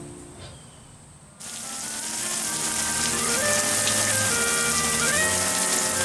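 Background music: one song's tail fades out, and about a second and a half in a new piece of music starts abruptly over a steady hiss.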